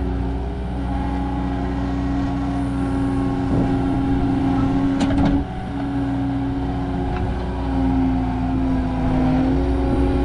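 Skid steer engine running steadily under load while grading, its pitch shifting a little. A few sharp clicks come about five seconds in, followed by a brief dip in the engine sound.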